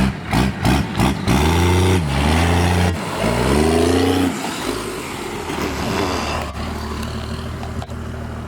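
First-generation Dodge Ram Cummins 5.9-litre inline-six diesel revving up and back down twice, then running steadily. A few sharp knocks come in the first second.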